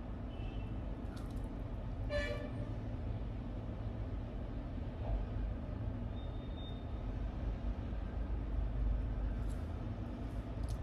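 Steady low background rumble, with one short pitched toot about two seconds in.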